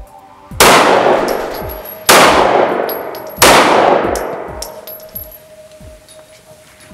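Three handgun shots about a second and a half apart, each with a long echoing decay inside an indoor firing range.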